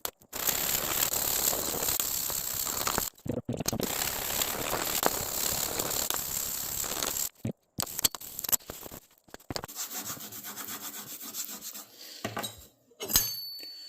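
Plane iron being rubbed back and forth on a fine-grit sharpening stone, a dense scraping hiss. Two long spells of honing are followed by shorter, quieter strokes, and a sharp click comes near the end.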